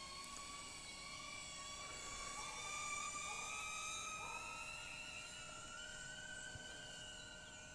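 DJI Neo 2 mini drone's propellers whining steadily, the pitch rising slowly over several seconds.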